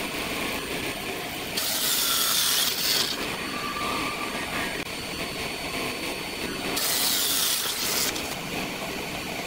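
Sliding table saw running, its circular blade cutting through a thick hardwood block twice, each cut a louder, hissing stretch of about a second, with the saw's steady running noise between.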